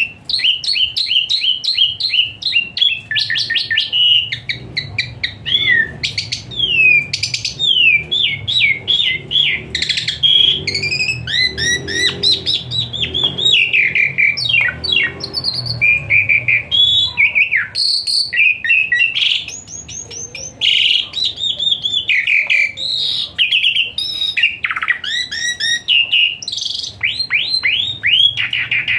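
Asian pied starling (jalak suren) singing a long, unbroken medley of rapid chirps, whistles and trills, packed with varied fill-in phrases, easing briefly about two-thirds of the way through.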